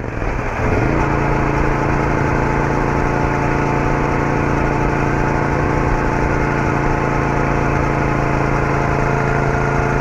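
Royal Enfield Interceptor 650's parallel-twin engine running as the motorcycle is ridden. Its note rises over about the first second, then holds steady at an even cruising pace.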